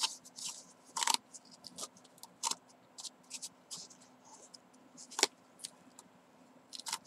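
Yarn strands scraping as they are pulled out of and pressed into the slots of a cardboard braiding disc, with the disc being handled and turned: scattered short scratches and taps, the sharpest about a second in, about two and a half seconds in, and just after five seconds.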